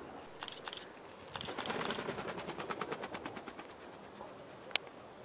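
Capercaillie hen's wings beating in flight: a fast, even run of wingbeats that starts about a second and a half in, is loudest just after, and fades over the next two seconds. A single sharp click comes near the end.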